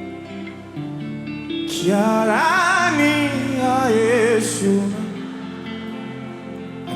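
Slow worship music: soft held instrumental chords, with a singer coming in about two seconds in on a long wordless run of wavering, vibrato notes that fades out near five seconds.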